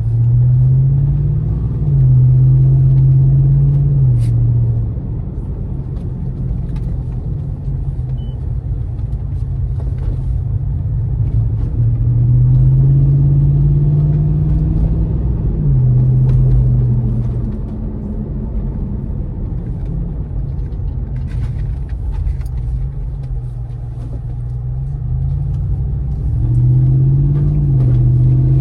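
Toyota 4.7-litre V8 through a stainless Magnaflow Overland cat-back exhaust, heard from inside the cabin: a low exhaust rumble that climbs in pitch under acceleration and drops at each gear change. This happens in three pulls, about a second in, midway and near the end, with steadier cruising and road noise between.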